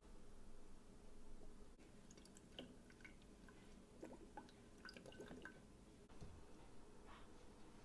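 Faint dripping and trickling of soy sauce into a plastic soda bottle: a scatter of small drips, mostly in the middle few seconds.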